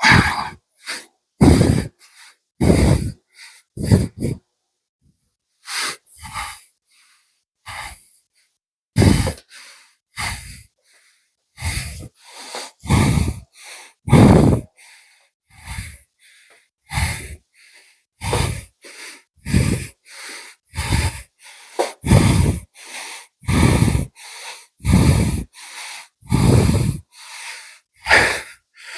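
A man breathing hard and fast close to the microphone, out of breath from cardio exercise. The breaths are loud and rough, in and out at about one to two a second, with a short pause about five seconds in.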